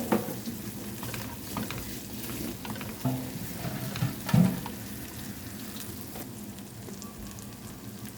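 Garlic, onion and grated ginger sizzling in sesame oil in a pan as they are stir-fried, with a few short strokes of the stirring utensil, the strongest about four and a half seconds in.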